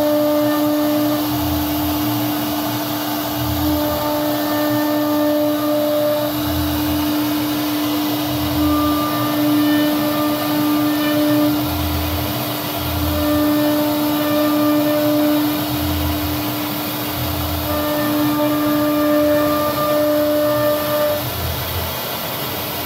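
CNC router's spindle running with a steady whine while its carving bit cuts a relief pattern into a wooden door panel. Higher tones and a low rumble come and go every second or two as the head moves and the bit bites into the wood.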